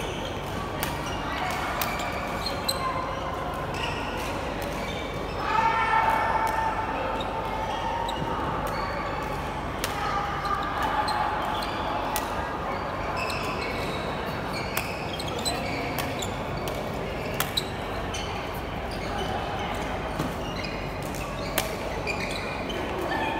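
Badminton play: sharp, irregular racket hits on the shuttlecock and footfalls on the court, in an echoing sports hall, with voices and a louder held sound about six seconds in.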